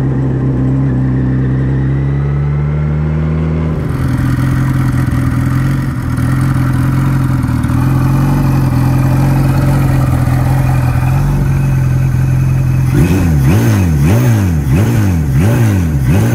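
Kawasaki Z1R Turbo's turbocharged inline four running through a hand-made stainless steel exhaust: first steady under way, then idling evenly, and near the end revved in a run of quick throttle blips, about one every two-thirds of a second.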